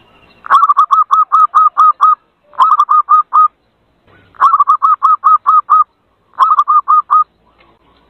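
Zebra dove (perkutut) calling in four quick runs of short repeated cooing notes, each run lasting about one to one and a half seconds with brief pauses between. It is a lure recording used to call in zebra doves.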